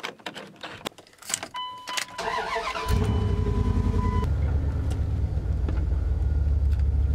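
A truck's door opening and the driver climbing in, with a few clicks and knocks, then a steady warning chime from the dash. The starter cranks briefly, the engine catches about three seconds in and settles into a loud, steady, deep idle.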